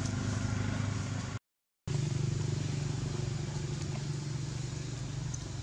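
Steady low engine-like hum under a constant background hiss, broken by a complete half-second dropout to silence about a second and a half in, after which the hum resumes slightly higher.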